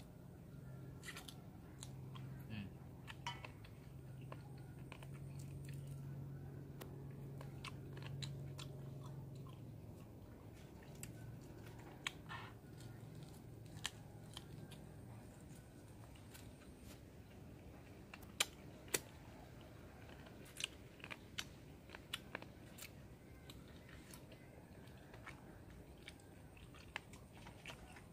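Chewing and biting on grilled chicken feet, with scattered small crunches and sharp clicks, a few louder ones in the second half.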